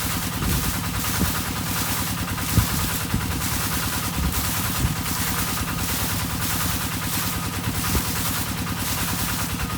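Engine-driven irrigation water pump running steadily at the rice field, a constant low drone, with frogs calling behind it.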